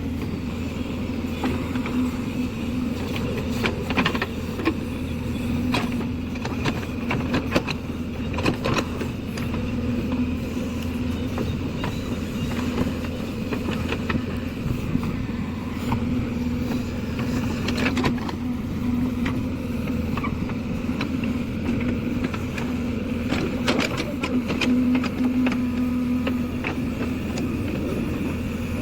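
JCB 3DX backhoe loader's diesel engine running steadily while it digs, with scattered knocks and clanks.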